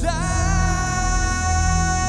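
A singer sliding up into one long held note over steady, low backing music.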